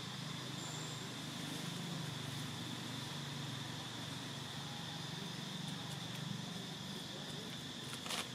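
Outdoor ambience: a steady high-pitched drone of insects over a low rumble, with a short crackle near the end.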